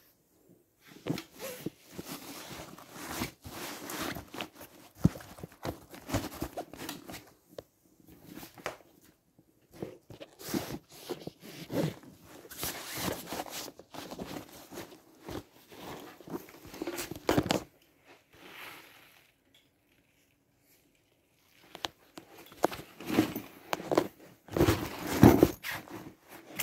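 Hands handling an EVERKI wheeled laptop trolley bag: its fabric rustling and contents shifting, with small knocks, in irregular bursts. A quiet spell of about two seconds comes about three-quarters of the way through.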